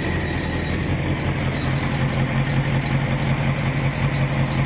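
Honda CBR929RR's 929 cc inline-four engine idling, with a thin steady high-pitched whistle over the engine hum. The whistle is the sign of a failing water pump seal, cured by replacing the pump's repair kit. The engine note steps up slightly about a second in.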